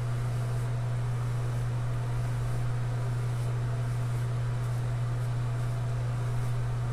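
Bristle beard brush stroked repeatedly through a full beard, faint soft swishes over a steady low hum.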